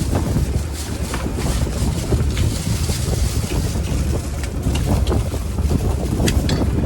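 Strong wind buffeting the microphone: a heavy, steady low rumble with scattered light clicks and taps.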